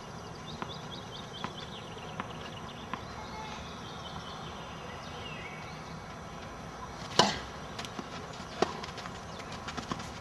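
A tennis ball struck once, sharply and loudly, about seven seconds in, followed by a few lighter knocks, over steady outdoor background noise. Faint short high chirps come in the first few seconds.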